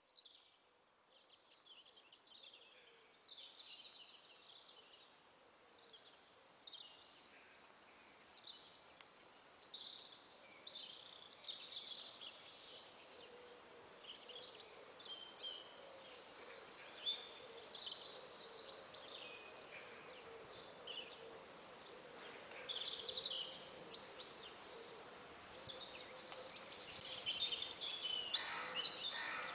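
Faint chorus of songbirds chirping and trilling over a soft outdoor background hiss, busier and louder toward the end.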